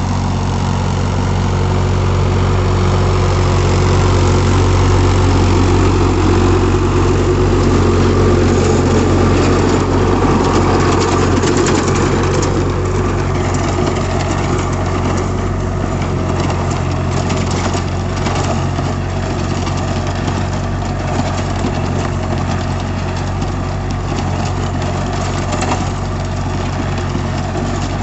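Sonalika DI 32 RX tractor's diesel engine running steadily under load as it drives a rear-mounted rotavator through the soil. It gets a little louder a few seconds in and eases off after about twelve seconds.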